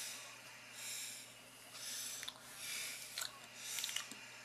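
A person breathing audibly, soft hissy breaths about once a second, with a few faint clicks near the end.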